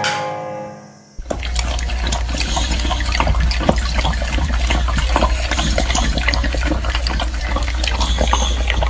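Electronic keyboard music fading out in the first second, then a dog lapping liquid from a metal bowl: a fast, irregular run of wet lapping clicks over a steady low hum.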